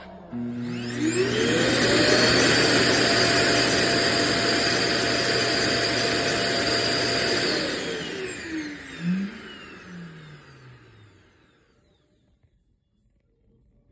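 Self-emptying Clean Base of an iRobot Roomba j7+ evacuating the robot's bin. Its suction motor spins up with a rising whine, runs loud and steady with rushing air for about six seconds, then winds down with a falling whine and fades out.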